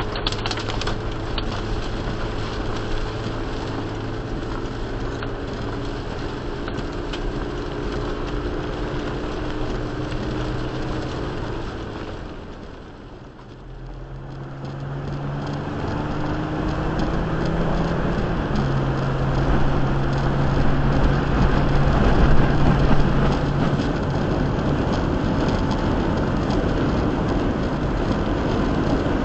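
Car driving, heard from inside the cabin: steady road noise with an engine hum. About halfway through it dips quieter for a moment, then comes back with tyres on wet pavement and the engine note rising in two steps as the car picks up speed.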